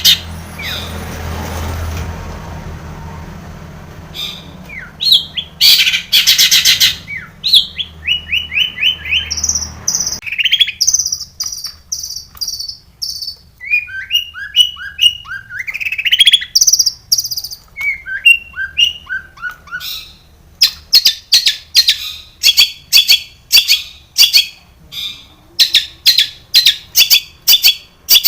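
Long-tailed shrike (cendet) singing a varied song of short trills, falling whistled notes and rapid chatter. In the last third it settles into sharp repeated notes, about two a second.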